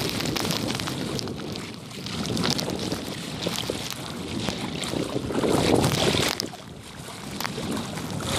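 Legs wading through shallow sea water, sloshing and swishing in swells every few seconds as each stride pushes through, with wind rumbling on the microphone.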